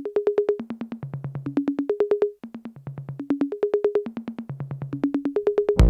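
Electronic intro music: a synthesizer plays fast repeated staccato notes in a looping pattern of a few pitches that repeats about every two seconds.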